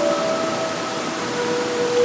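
Steady rush of a flowing stream, with soft sustained notes of background music over it: a held chord fades out in the first second and a single note comes in about midway.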